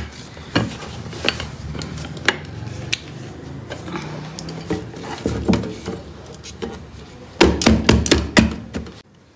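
A glass cake dish and a foil cake board being handled and set against each other: scattered clicks, taps and rubbing, with a cluster of louder knocks and clatter near the end as the board is pressed down on the dish.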